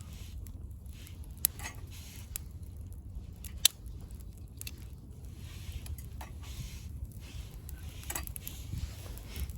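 Wood burning in a small camping wood stove, crackling, with a steady soft hiss and two sharp pops about a second and a half and nearly four seconds in.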